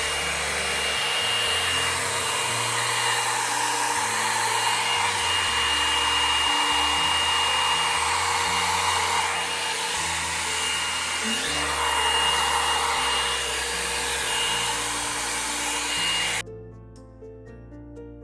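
Hot air styling brush (blow-dryer brush) running, a steady rush of air with a thin high whine, as it is passed through hair to dry it straight. It cuts off suddenly about sixteen seconds in.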